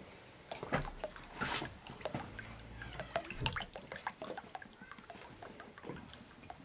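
A thin stream of milk trickling from a carton into beaten eggs in a metal bowl. Several sharp clicks and rustles, loudest in the first two seconds, come with the handling of the carton and bowl.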